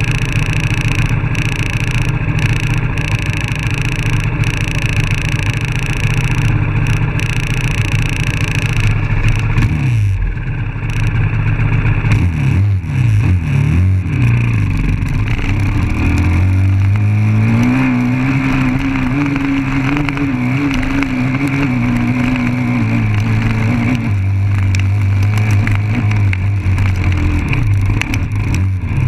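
Dirt bike engine idling steadily for about ten seconds, then revving up and down several times and holding a higher, steady pitch as the bike gets moving along the trail.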